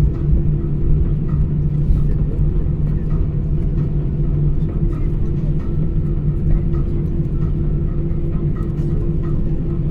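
Steady low engine rumble heard from inside a vehicle, with a low and a higher hum held steady throughout.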